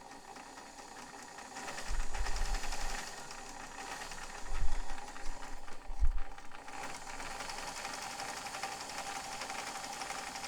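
White Model 510 electric sewing machine stitching steadily through two layers of cotton, a fast run of fine needle ticks over the motor's hum, with a few low thumps in the middle as it sews forward and in reverse. It has the growling running sound that the restorer wonders may come from its rubber timing belt, though he has found nothing wrong with the machine.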